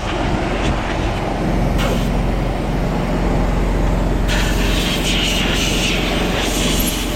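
Engine of a John Deere Gator side-by-side utility vehicle running steadily, a dense low rumble. A brighter hiss comes in about four seconds in.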